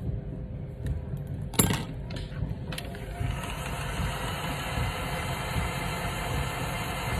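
A few sharp clicks, then about three seconds in a heat gun switches on and blows a steady hiss of hot air at the edge of a phone screen, over a low background hum.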